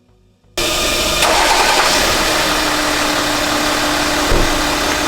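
2008 Hyundai Veracruz engine running at idle, cutting in suddenly about half a second in and holding loud and steady with a steady hum. The engine's belt side is making the metallic noise the car came in with.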